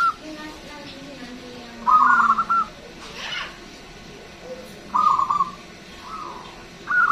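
Zebra dove (perkutut) singing: three short phrases of quick, stuttering coo notes, each under a second long and spaced about three seconds apart, the last starting near the end.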